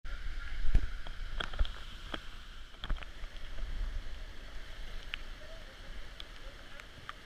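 Flowing water with a dozen or so sharp clicks and knocks over it, most of them in the first three seconds.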